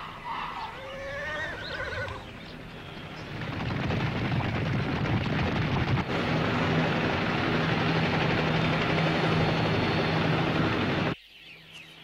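Animated sound effect of a herd stampeding: a rumble of running hooves that builds over the first few seconds, holds loud and cuts off suddenly near the end, with a few wavering animal cries at the start.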